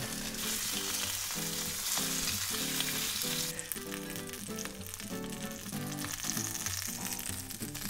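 Salmon belly strips sizzling skin-side down in a hot frying pan, the sizzle thinning out about three and a half seconds in. A quiet music track with a regular beat plays underneath.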